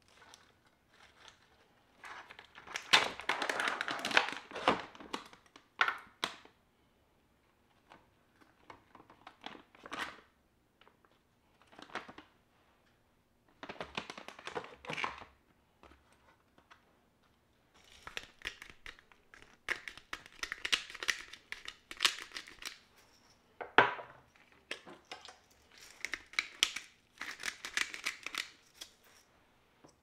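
Thin plastic food packaging crinkling and rustling as it is handled, in several separate bursts, with rustling spinach leaves and a few sharp light clicks from metal tongs.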